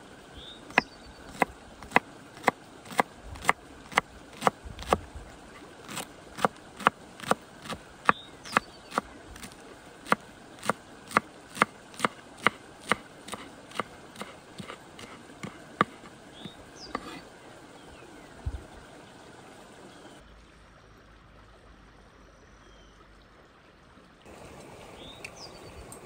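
Sharp knocks at a steady pace, a little over two a second, stopping after about sixteen seconds; a knife chopping on a cutting board. A stream runs underneath.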